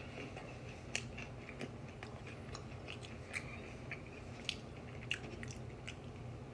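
Someone chewing wavy Pringles crisps close to the microphone, with a dozen or so sharp, irregular crunches over a steady low hum.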